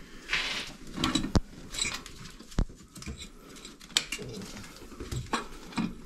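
Cast-aluminium intake plenum being worked into place on the engine and aligned over the EGR valves: scattered sharp metal clicks and knocks, with short scrapes and rustles between them.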